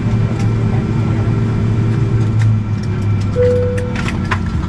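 Steady hum of a Boeing 777-200ER airliner, engines and air systems running. A single short tone sounds about three and a half seconds in, and a few sharp clicks come near the end.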